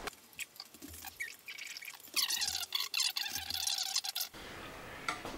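Faint clicks and scratchy rustling of hands handling wires inside a sheet-metal amplifier chassis, with a denser scratchy stretch about two seconds in, then only a faint steady hiss.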